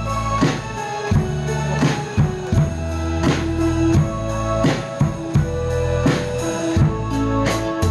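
Instrumental break of a pop ballad: a drum kit keeps a steady beat, about two strokes a second on bass drum and snare, over sustained pitched accompaniment.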